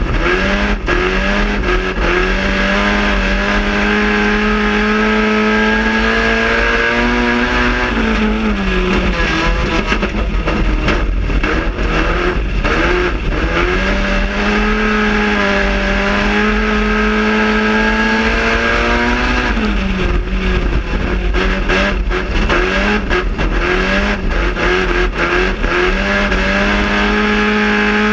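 GM Quad 4 inline-four engine of a circle-track race car at racing speed, heard from inside the cockpit, raspy. Its pitch holds and slowly climbs along the straights and dips twice, about a third and two thirds of the way through, as the throttle comes off for the turns, then rises again.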